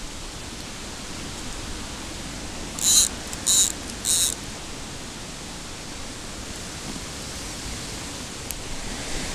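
Wind buffeting the microphone, a steady rushing noise with low rumble. About three seconds in come three short, high-pitched squeaks in quick succession, the loudest sounds here.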